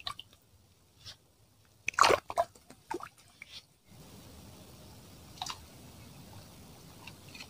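Close-up handling noise of baiting a fishing hook with a live cricket: a few irregular small clicks and crunches over the first four seconds. After an abrupt change to a steady faint hiss, a single sharp tick sounds about five and a half seconds in.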